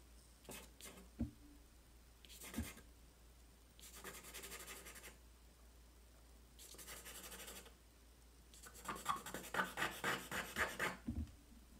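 Charcoal pencil scratching on drawing paper in quick back-and-forth hatching strokes, in three runs, the last one longest and loudest. There are a few soft knocks in between.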